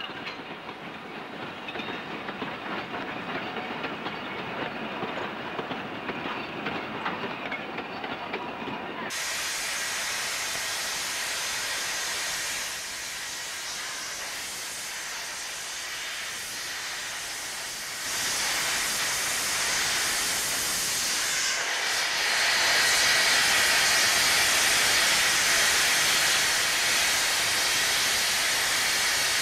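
NSW 36 class 4-6-0 steam locomotive: first rolling past close by, then, after an abrupt change about nine seconds in, a steady loud hiss of steam venting from the open cylinder drain cocks. The hiss grows louder in steps toward the end.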